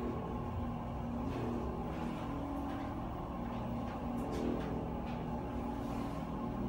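Schindler 300A holeless hydraulic elevator travelling, heard from inside the car: the submersible pump unit gives a steady hum with several level tones, and a few light clicks come through it.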